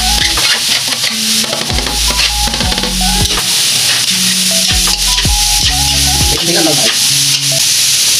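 Chopped carrots, green onions, garlic and onion sizzling steadily in hot oil in a metal wok while a metal spatula stirs and scrapes them around the pan.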